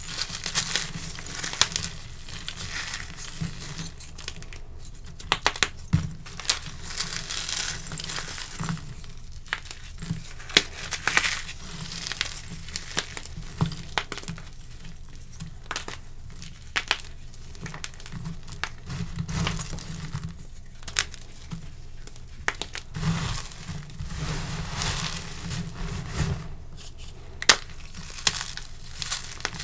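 Blocks of dyed gym chalk and cornstarch being broken and crushed by hand: a dry, gritty crunching and crumbling, cut by frequent sharp snaps as pieces break apart.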